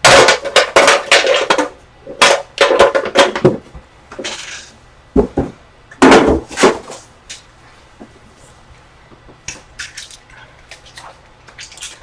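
Trading card box and its packaging being handled and opened: several loud stretches of scraping and crinkling in the first seven seconds, with a sharp knock about five seconds in, then only light clicks and taps.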